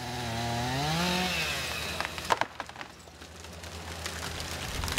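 Chainsaw engine revving up, then easing off, while burned trees are cleared. A few sharp cracks of breaking wood come about two seconds in.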